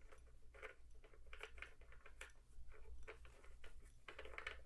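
Faint, scattered small clicks and scrapes of fingers working the metal clutch knob loose from the handwheel of a Singer 401A sewing machine, after its set screw has been taken out.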